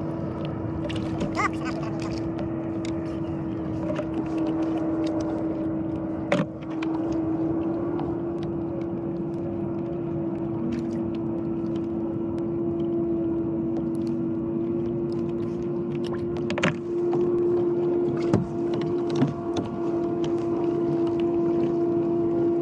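Steady motor hum holding one low note that rises slightly in pitch over the stretch, with a few sharp clicks and knocks on top.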